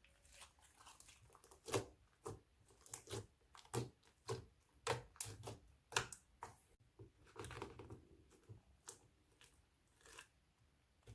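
Crunchy slime being worked, giving a run of irregular, sharp crackling pops, some close together and some a second apart.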